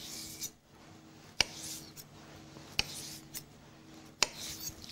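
Sharp knife slicing thin strips of asparagus, each stroke ending in a crisp tap on the cutting board: three taps about a second and a half apart, each with a short scraping hiss.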